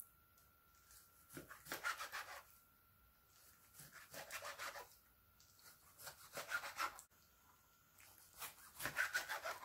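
Chef's knife slicing through raw squid and striking a plastic cutting board: four short runs of quick, quiet cutting strokes, each lasting about a second, with pauses between.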